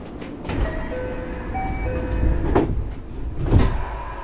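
Inside a JR West 521 series electric train: a short run of chime notes, then two heavy thuds about a second apart, typical of the sliding passenger doors closing at a station stop.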